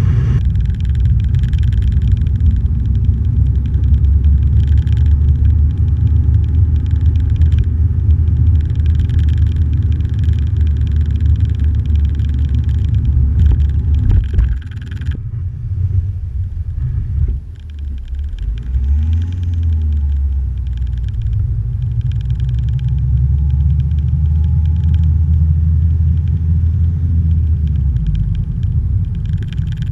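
Steady low rumble of the vehicle carrying the camera as it rolls along a snow-covered road, with road and wind noise over it. About halfway through it eases off and quietens briefly, the engine note rises and falls once, then it settles back into a steady drone.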